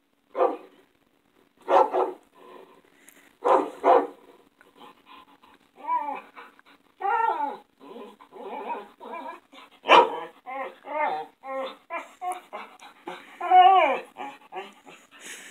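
A recording of dogs barking and snarling, played through a small Bluetooth speaker. Separate barks come first, then from about five seconds in a dense run of barks, yelps and snarls.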